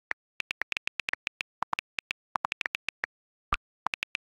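iPhone on-screen keyboard clicks as a message is typed: quick, irregular taps, a few of them lower-pitched than the rest. About three and a half seconds in comes a single deeper pop as the WhatsApp message is sent.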